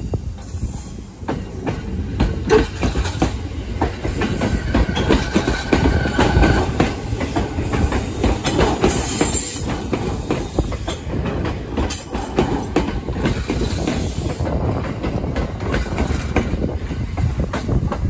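JR Yokosuka Line E217-series electric commuter train passing close by, its wheels clattering over the rails in a long run of irregular knocks over a steady rumble.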